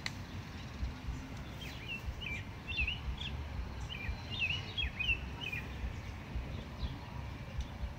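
A songbird chirping in two short runs of quick rising and falling notes, about two seconds in and again about four seconds in, over a steady low rumble.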